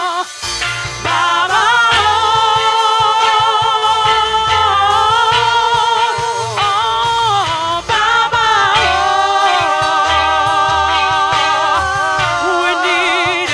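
Gospel worship singing: long held notes with wide vibrato over a low, steady instrumental backing.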